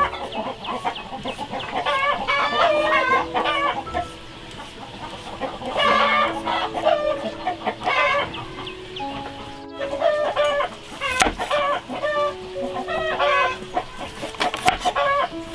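Chickens clucking and calling again and again, with soft background music underneath. Near the end a cleaver knocks down through a carrot onto a chopping board a few times.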